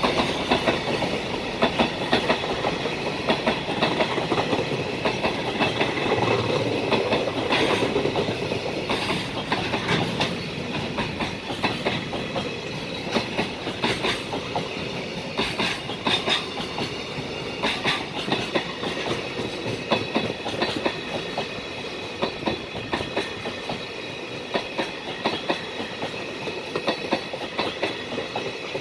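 Container flatcars of a long freight train rolling past, their wheels clacking over the rail joints in a steady rhythm over the running noise, gradually quieter toward the end as the tail of the train nears.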